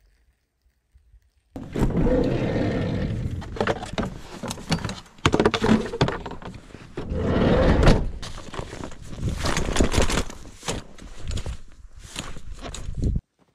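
Near silence for about a second and a half, then clattering, knocks and scraping as a folding camp chair is pulled out of a minivan's side door and unfolded; the sound stops abruptly just before the end.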